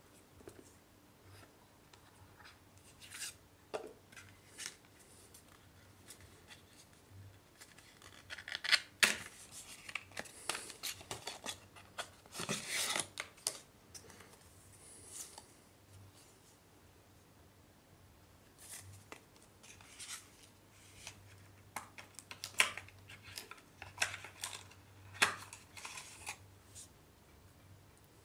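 Cardboard box and paper inserts being handled and slid about: scattered rustles, scrapes and small clicks, with the loudest rustling about nine and thirteen seconds in.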